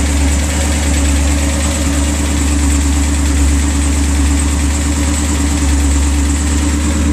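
Supercharged big-block V8 with an 8-71 Roots blower idling steadily, a deep even drone.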